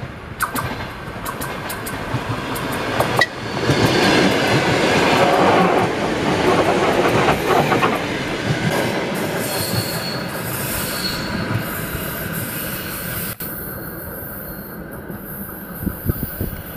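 ER9M electric multiple unit running past close by. Its wheels clatter over the rail joints, and it is loudest about four to eight seconds in. Short high wheel squeals follow, then the noise settles lower as the train moves away.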